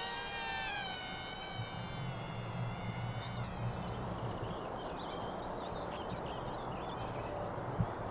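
Small electric RC model plane's motor and propeller whining overhead, a high buzzing tone that drops slightly in pitch and fades away over the first three seconds as it flies past. Faint high chirps follow, with a single short knock near the end.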